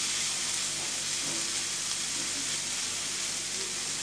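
Diced vegetables (onion, bell peppers, boiled corn, carrots and beans) sizzling steadily in butter in a frying pan, stirred with a silicone spatula.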